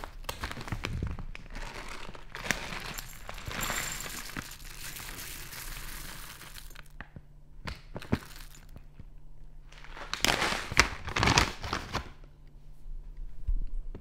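Food packaging crinkling and rustling, with a few sharp knocks and a louder stretch of rustling about ten seconds in.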